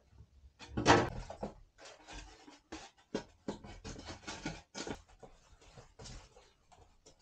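Rigid foam insulation board being handled and pushed into place against a camper's wooden wall framing: a string of short knocks, taps and scrapes, with a louder thump about a second in.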